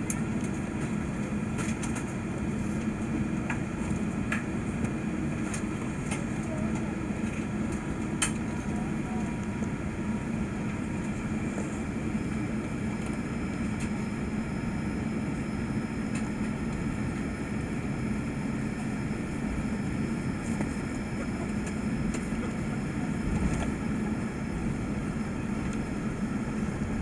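Steady low rumble and hum of an Airbus A380's economy cabin on the ground before takeoff, with a few brief clicks about a second, four seconds and eight seconds in.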